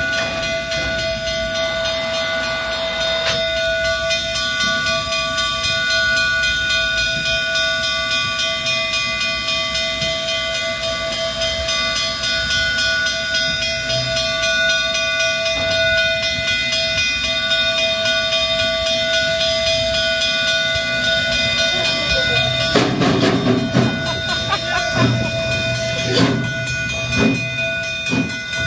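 Durango and Silverton K-28 class 2-8-2 steam locomotive No. 473 standing under steam, hissing steadily with a steady high tone over it. About 23 seconds in, a series of knocks and thumps starts.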